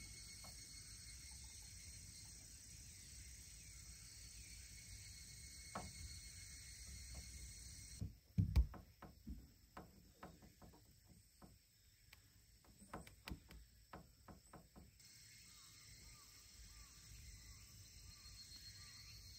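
Quiet outdoor ambience with a steady high-pitched chirring. About eight seconds in it cuts out, and a run of sharp knocks and clicks follows, the first a heavy thump. The chirring returns near the end.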